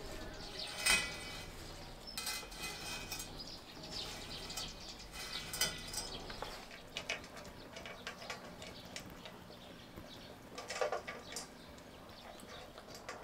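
Scattered light knocks and clinks of a glass jar vase of cut dahlias being handled and set on a slatted metal table, with rustling of the stems; the sharpest knock comes about a second in.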